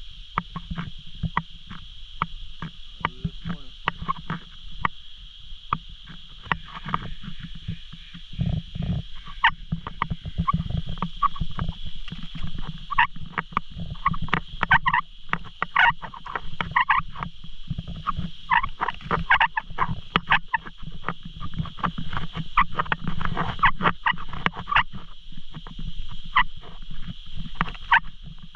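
Footsteps on a paved path, over a steady high-pitched drone and many short croaking animal calls from the surrounding vegetation.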